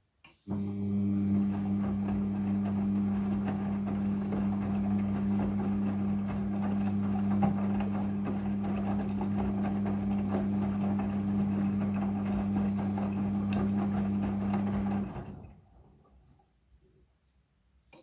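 Midea front-loading washing machine turning its drum during the rinse cycle: a steady motor hum under the noise of wet laundry tumbling. It starts with a click and stops about 15 seconds in, winding down over a second or so.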